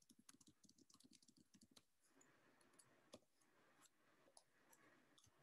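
Faint computer keyboard typing: a quick run of key clicks over the first two seconds, then a few scattered single clicks.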